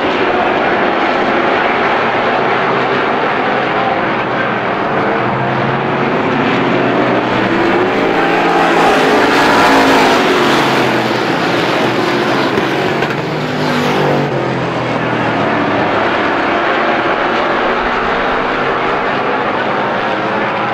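A pack of Strictly Stock race cars running hard around an oval track, with many engines blending together. The engines are loudest about halfway through as cars pass close, then the pitch drops as they go by.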